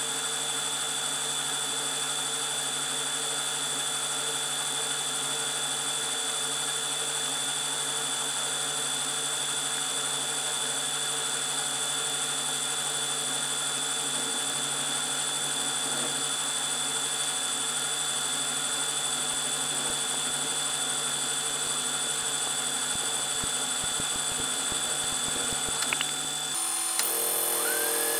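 Milling machine running with a steady high whine and hum as its end mill cuts along a metal bar. Near the end the sound changes abruptly, and a short rising whine settles to a new steady pitch.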